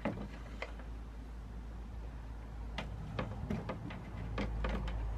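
Light plastic clicks and taps as hands work a control knob on the plastic grille of a Fiamma Turbo Vent roof fan. The clicks are scattered, with a quick run of several about three to five seconds in, over a low steady hum.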